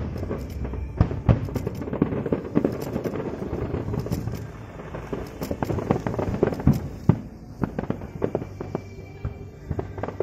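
Fireworks going off in quick succession: a rapid, irregular string of sharp bangs and crackles, several a second, thinning out somewhat in the last few seconds.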